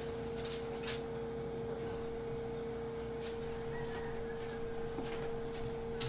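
A steady electrical-sounding hum at one pitch, with a few faint clicks over background room noise.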